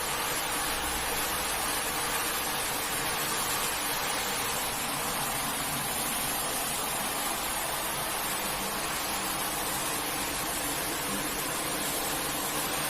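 Steady hiss of water jetting from a pressure washer onto a carpet, with no breaks or changes.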